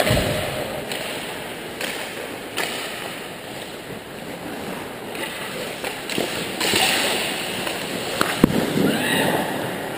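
Ice hockey rink play: skate blades scraping and carving the ice, with a sharp knock of stick or puck about eight and a half seconds in, and indistinct voices echoing in the arena.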